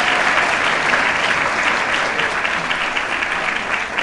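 Audience applauding, a dense steady clapping that slowly tapers off.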